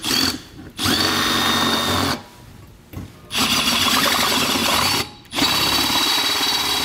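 Cordless drill boring a half-inch hole through an RV sidewall, about 2 inches of sheet metal, wood and another metal layer. The drill runs in four or five spurts of one to two seconds with short pauses, a steady high whine over the motor and cutting noise.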